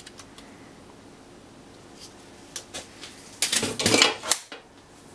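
Clattering clicks and knocks of parts being handled and pulled loose inside a Dell 2850 rack server's metal chassis, in a burst lasting about a second, starting about three and a half seconds in. Before it there are only a few faint light clicks.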